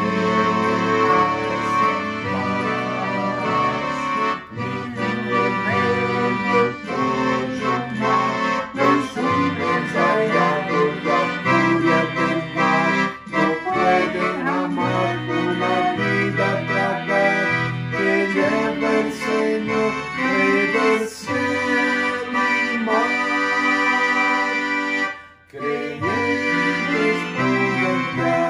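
Instrumental hymn music with held chords on a reedy keyboard or accordion-like instrument, with a short break near the end.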